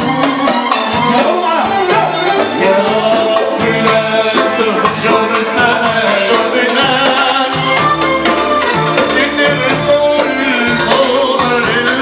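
Live Arabic wedding band music: a male singer singing into a microphone over electronic keyboard, violin, drum kit and a hand drum, with a steady percussion beat.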